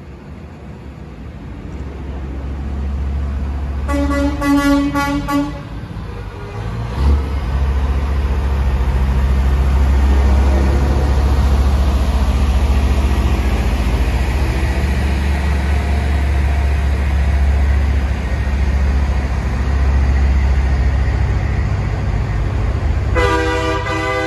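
A semi truck's air horn blows once, about four seconds in, for about a second and a half, while a heavy diesel semi-tractor hauling a tanker trailer drives past with a loud low engine rumble, loudest in the middle. Near the end another semi's air horn blows.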